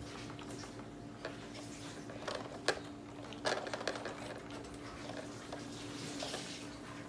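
Scattered plastic clicks and taps from a baby handling the tray and toys of an exersaucer-style activity center, with a few sharper knocks around the middle, over a steady hum.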